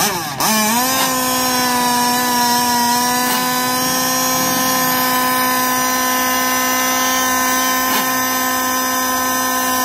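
A small motor running at a steady, high-pitched whine, coming in about half a second in with a quick rise in pitch and then holding one pitch.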